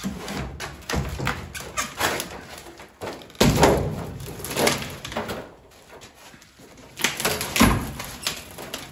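Wooden door framing being pried loose with a pry bar: wood cracking and knocking, with a loud crack about three and a half seconds in and a heavy thud about three-quarters of the way through as a length of framing comes away.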